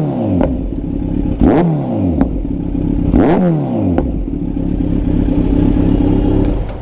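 Kawasaki Z900's inline-four engine through a Mivv full-system carbon exhaust, revving up and falling off three times with a few sharp pops and crackles on the overrun, then holding a steady pitch from about four seconds in.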